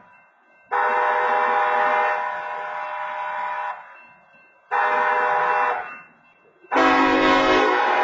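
BNSF locomotive air horn sounding the grade-crossing signal: a long chord blast, a short blast, then the final long blast starting near the end, louder and joined by a low rumble as the train reaches the crossing.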